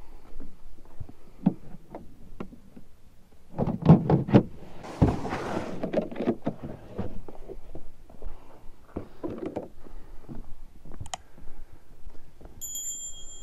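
Thunks and knocks of a plastic ice chest being handled, its lid opened and shut as a caught flounder is put in, loudest about four to five seconds in. Near the end, a short high electronic tone.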